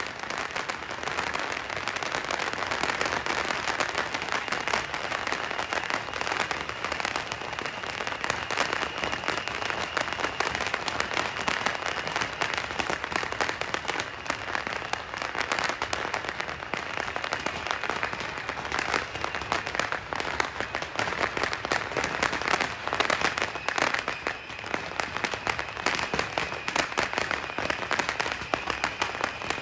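Massed firecrackers and fireworks rockets going off together in a dense, unbroken crackle, with a faint high whistle running through it.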